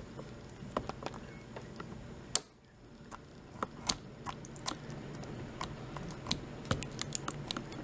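Scissors snipping at the clear plastic wrap around a small plastic toy: a series of irregular sharp snips and clicks.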